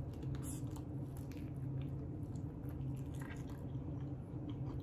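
A person biting and chewing a barbecue chicken wing, with soft, wet mouth sounds, over a steady low hum.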